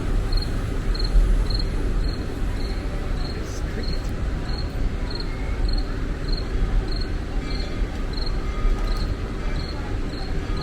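A cricket chirping steadily, about three evenly spaced high chirps a second, over a constant low rumble that is the loudest sound.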